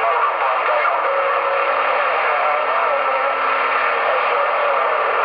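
Steady static hiss from a single-sideband CB radio's speaker between transmissions, with faint wavering, warbling tones under the noise.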